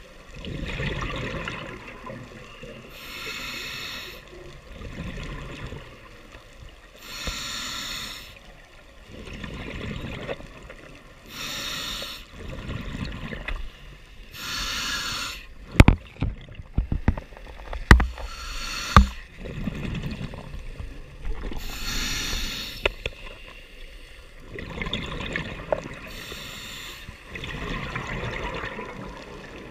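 Scuba diver breathing through a regulator underwater: a steady cycle of breaths, each with an airy hiss and a rush of exhaust bubbles, roughly every four seconds. Several sharp knocks come in a cluster a little past the middle and are the loudest sounds.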